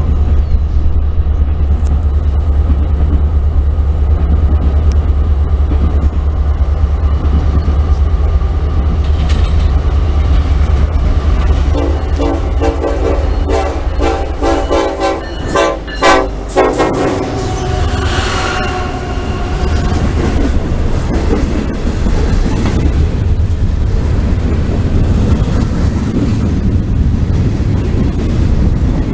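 Diesel freight locomotive approaching with a steady low engine rumble, sounding its several-toned horn in a series of blasts about halfway through. A long string of gondola cars then rolls past with a rattling wheel clatter and a brief squeal of wheels on rail.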